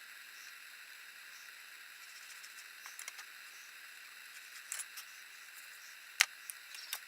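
A few light, sharp clicks and taps over a steady background hiss, the loudest about six seconds in.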